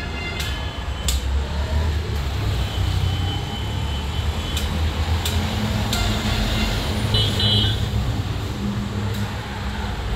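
A steady low hum of a vehicle engine, with a few faint clicks and a short high-pitched tone about seven seconds in.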